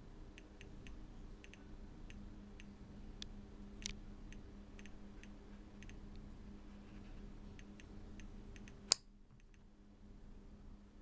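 Homemade Geiger counter with an SBM-20 tube clicking through its piezo buzzer at irregular intervals, about two to three clicks a second. Each click is a particle detected from the radium-226 luminous paint of a Soviet Adrianov compass. A single louder knock comes near the end, after which the clicks come less often.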